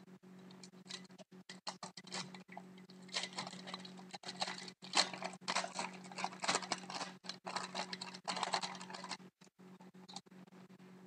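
Crinkling and rustling of trading-card packaging and cards being handled: a dense run of small crackles from about three to nine seconds in, over a low steady hum.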